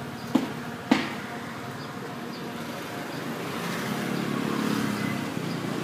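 A knife chopping small limes on a wooden cutting board, two sharp knocks in the first second. Then a passing motor vehicle, its noise swelling and easing off over a few seconds.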